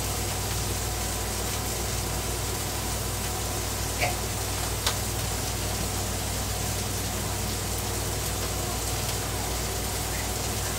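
Ground-beef burger patties sizzling on a Blackstone flat-top griddle, a steady hiss, with two light clicks about four and five seconds in.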